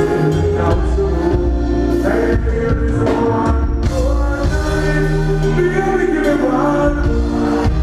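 Live reggae-dancehall band playing loudly, with a steady bass line, drums and a male lead vocal singing over it.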